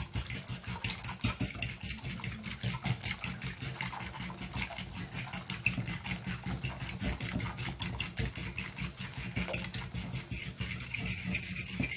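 A spoon rapidly beating egg and milk in a glass bowl, its strokes tapping and clinking against the glass several times a second in a fast, even rhythm.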